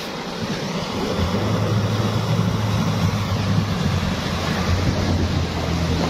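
Off-road 4x4 engine running steadily as it drives through a shallow river, over the rush and splash of the water; the engine's low hum comes up about a second in.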